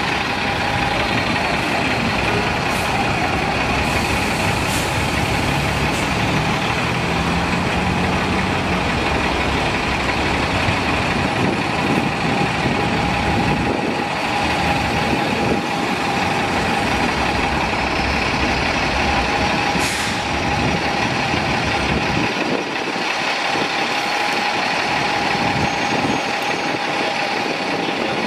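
2012 New Flyer XD60 articulated bus idling at a stop: a steady engine and cooling-fan drone with a constant whine in it. The deep rumble drops away about three quarters of the way through.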